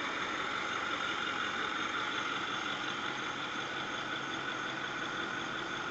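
Ford pickup trucks idling with a steady, even running noise that does not change in pitch.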